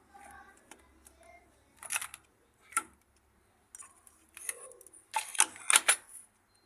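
A few sharp clicks and knocks, then a quick cluster of louder ones about five to six seconds in: hard parts or tools being handled and set down.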